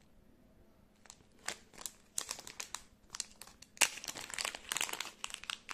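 Small clear plastic packaging bag crinkling as fingers handle and pull it open: a few scattered crackles at first, then a dense run of crinkling over the last two seconds.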